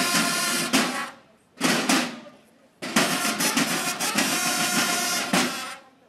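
Marching drum-and-bugle corps playing: bugle calls in three phrases over snare drums. The last phrase is the longest, running from about three seconds in to near the end.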